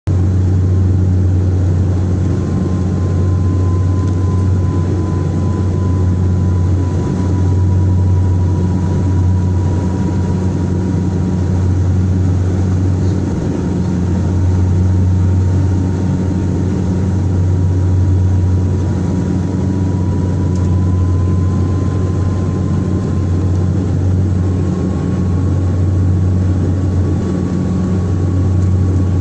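Saab 340B's twin General Electric CT7-9B turboprops running: a steady low propeller drone that swells and fades every few seconds, with a thin whine held near one pitch that rises slightly about twenty seconds in.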